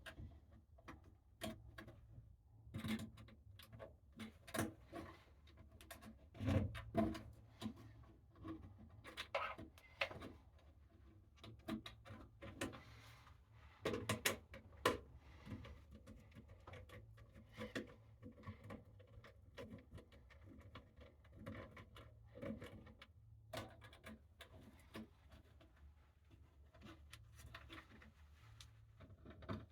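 Scattered small clicks, taps and knocks of hands working on a wall thermostat's wiring and mounting, over a low steady hum.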